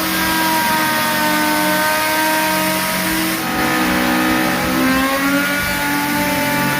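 Electric woodworking power tool's motor running steadily with a whine made of several tones. Its pitch dips about halfway through and climbs again near the end, as when the tool is loaded by the wood and then eases.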